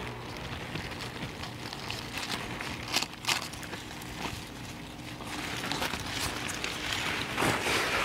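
Rustling and scraping of digging by hand in damp garden soil among leafy plants, with two sharp knocks about three seconds in and heavier rustling toward the end. A steady low hum runs underneath.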